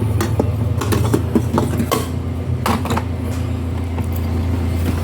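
A steady low hum with scattered light clicks and knocks, like parts being handled.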